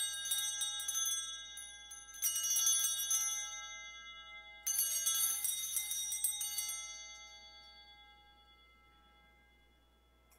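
Sanctus (altar) bells shaken three times, a jangling cluster of small bells. The rings come about 2 s apart, and each fades out, the last by about 8 s in. They mark the elevation of the chalice at the consecration.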